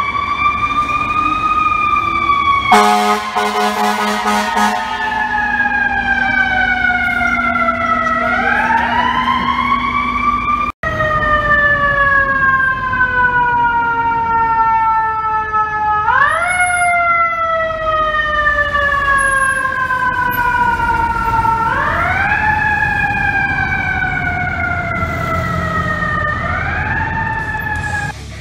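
FDNY ladder trucks' Federal Q2B mechanical siren winding up fast and slowly winding down, over and over. A loud air horn blast of about two seconds sounds about three seconds in.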